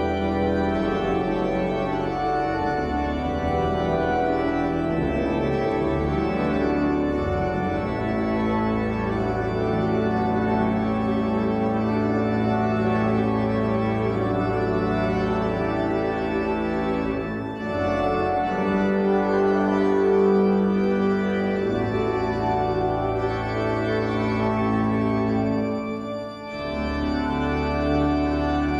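Organ playing slow, held chords, with two short breaks between chords in the second half.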